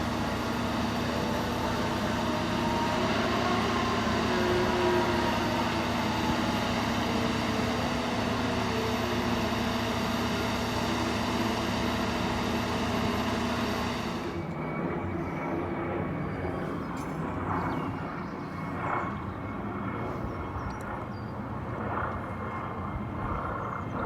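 Piling rig's diesel engine running steadily, with a low hum and tones sliding up and down in pitch over the first several seconds. About fourteen seconds in, the sound cuts abruptly to a quieter, thinner stretch.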